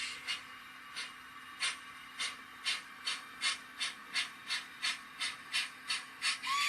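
Sound-decoder steam exhaust chuffs from a Rapido OO-gauge model of the locomotive Lion, played through its onboard speaker. The chuffs quicken steadily as the model picks up speed. A steam whistle starts sounding at the very end.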